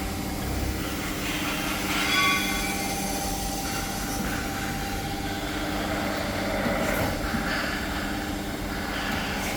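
Large Proth surface grinder running, a steady machine hum with several constant tones from its motors and hydraulic system. About two seconds in there is a brief high whine, and there are a couple of light knocks around seven seconds.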